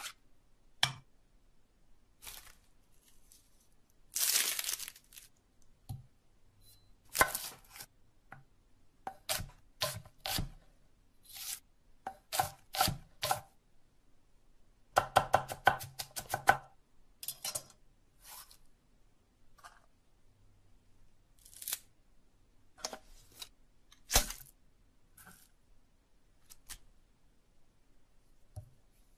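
A string of separate close-up food-preparation sounds: soft paste being scooped, cutting, and taps on a wooden tabletop, each one short with gaps between. Around halfway through comes a quick run of about a dozen clicks.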